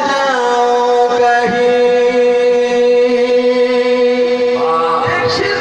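A man singing a naat through a microphone, holding one long steady note for about four seconds, then moving on to a new phrase near the end.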